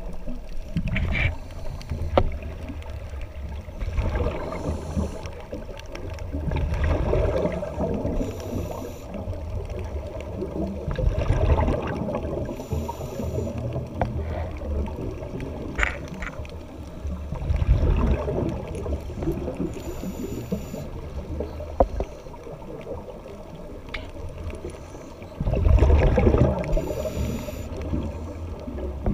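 Underwater scuba regulator breathing: a short hiss of inhalation followed by a burst of exhaled bubbles, repeating every six or seven seconds, with a few sharp clicks between breaths.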